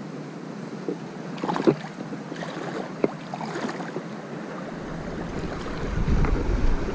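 Shallow river running steadily over stones, with a few light knocks and clicks in the first half. Wind buffets the microphone as a low rumble from about two thirds of the way in.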